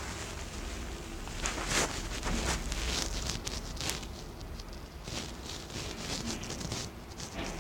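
Slime being squeezed and worked by hand, making irregular crackling clicks and small pops.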